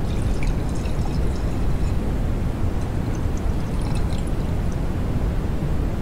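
Beer fizzing in a glass: a steady low rush with scattered tiny crackles of popping bubbles, thickest in the first two seconds and again around four seconds in.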